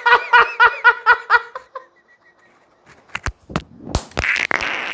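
A person laughing in quick, evenly spaced ha-ha-ha pulses, about six a second, that stop a little under two seconds in. A few sharp clicks and knocks and a short hiss follow near the end.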